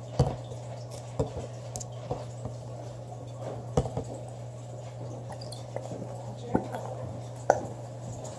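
Elmer's glue being squeezed from its bottle into a mixing container: soft squishing with a few scattered clicks and taps of the bottle and container, over a steady low hum.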